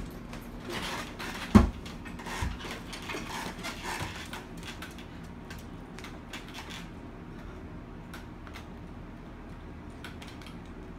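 A woman's footsteps and the rustle of clothes and a shoulder bag as she sits down on a wooden chair, with one sharp thump about a second and a half in. After that only faint scattered clicks and room noise.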